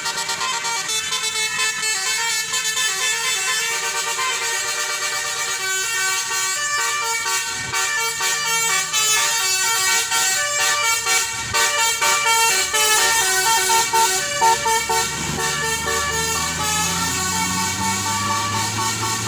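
Tour bus's Basuri multi-tone telolet horn playing a melody, a string of stepped horn notes. In the last few seconds a bus engine pulls, rising in pitch.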